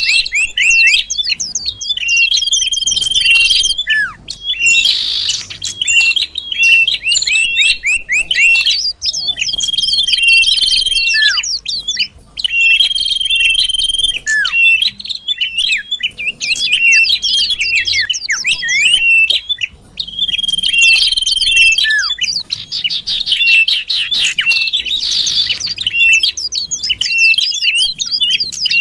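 Common iora (cipoh) song played as a lure recording: rapid strings of sharp chirps mixed with held whistles, with a similar phrase recurring every few seconds.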